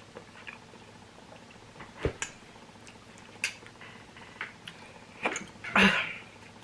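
Quiet mouth and chewing clicks while eating noodles, broken by sudden hiccups: one about two seconds in and a louder one near the end.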